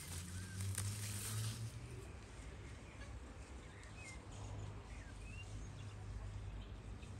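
Outdoor garden ambience with birds giving short, scattered chirps. In the first two seconds there is a rustle of leaves as radishes are pulled up by their tops, over a low hum.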